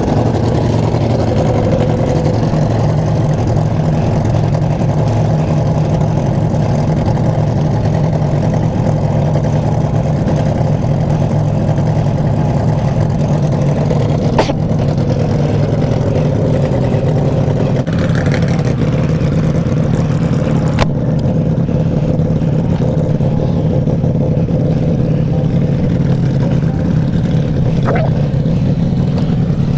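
Harley-Davidson V-twin motorcycle engine running steadily at a constant cruising speed, with a couple of sharp clicks about halfway through.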